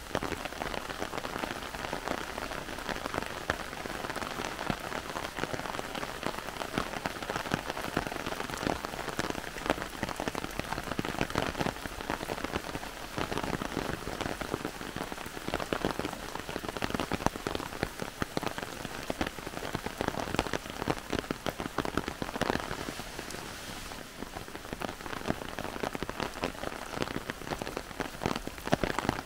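Heavy rain falling through a forest: a dense, steady patter of countless drops.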